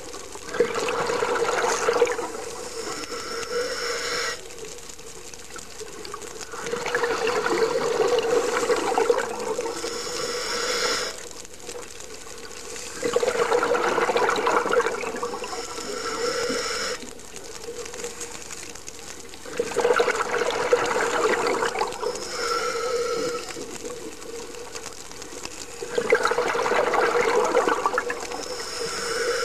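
Scuba diver breathing through a regulator underwater: a slow, regular cycle of regulator hiss and rushing exhaled bubbles, about one breath every six to seven seconds, five breaths in all.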